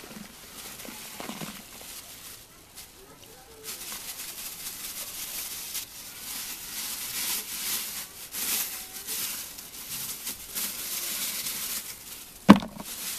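A plastic bag crinkling as powdered calcium carbonate is shaken out of it into a basin of water, with one sharp knock near the end.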